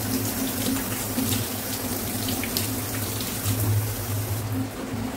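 Tap water running into a stainless steel sink and splashing over vegetables being rinsed by hand, with a steady low hum underneath.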